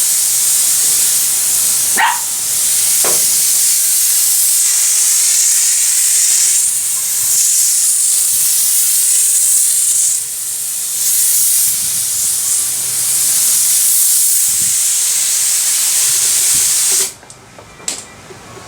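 Air-powered spray gun hissing steadily as it sprays textured bed liner, with a couple of brief let-ups on the trigger, then cutting off suddenly near the end.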